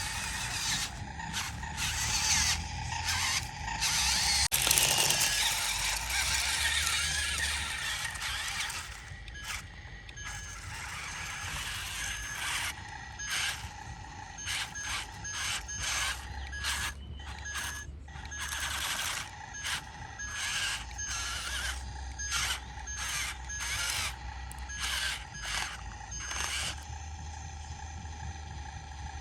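Yigong YG258C excavator working: engine running with bursts of hissing and scraping noise. From about ten seconds in to near the end, a rapid pulsing beep that fits a travel or warning alarm.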